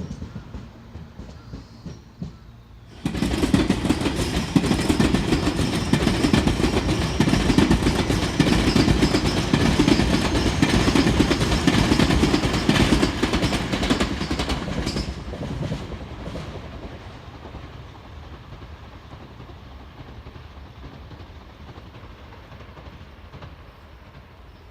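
Tobu Tojo Line electric train passing close by, its wheels clacking over the rail joints. The noise starts abruptly about three seconds in, stays loud for about twelve seconds, then fades away.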